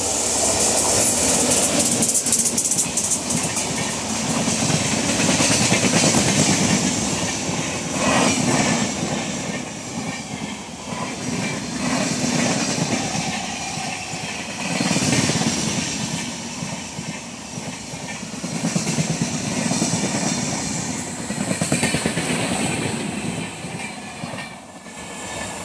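Express passenger train passing close by at speed. The red-and-grey LHB coaches roll past with a clatter of wheels over the rails that swells and dips every few seconds as each bogie goes by. It eases off near the end as the rear power van passes.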